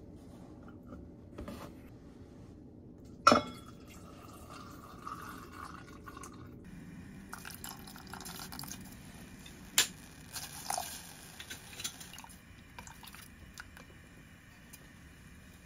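Soy sauce and other liquid seasonings poured and dripping into a stainless steel pot of sliced shiitake mushrooms, with small ticks of chopsticks against the pot. About three seconds in, one sharp clink against the pot is the loudest sound.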